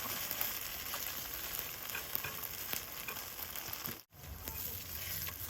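Potato pancake of grated hash-brown potato sizzling and crackling in oil in a frying pan. The sound cuts out for an instant about four seconds in.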